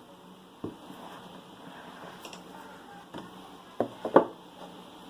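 Hands handling a smartphone box and its packaging, making a few sharp taps and knocks. One comes just under a second in, another about three seconds in, and a quick cluster of three follows near four seconds, the last of them the loudest.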